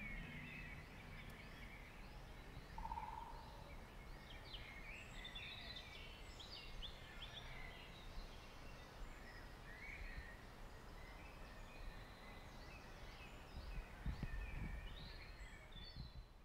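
Several small songbirds chirping and singing faintly in rapid short phrases over a steady low rumble, with a few dull low thumps near the end.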